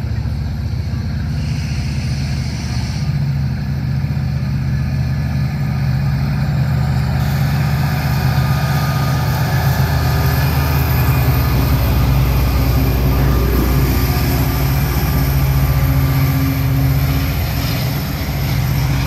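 Freight train passing: a Canadian Pacific SD60-3 diesel locomotive's EMD 16-cylinder two-stroke engine running steadily, with the autorack cars' wheels rolling on the rails. The rolling noise grows louder from about seven seconds in.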